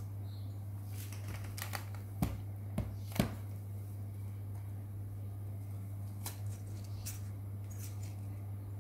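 Scattered light clicks and taps from handling and adjusting an aluminium tripod, several in the first few seconds and a few more near the end, over a steady low hum.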